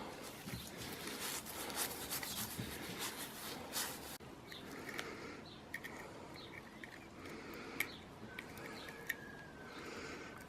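Swiss Army knife being washed in warm soapy water: a dense run of small splashes and rubbing for about four seconds. Then the sound changes abruptly to a quieter background with a few sharp clicks.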